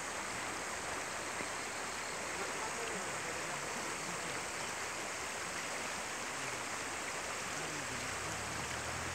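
Shallow stream water rushing steadily over a stony bed. A low hum joins in near the end.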